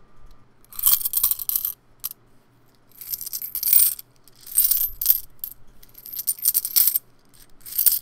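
A handful of coins shaken between cupped hands close to the microphone, jingling in repeated bursts about a second long with short pauses between them.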